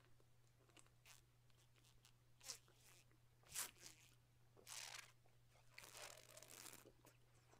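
Faint sounds of makgeolli being chugged straight from a plastic bottle: a few short gulps and crackles, the loudest about three and a half seconds in, over a low steady electrical hum.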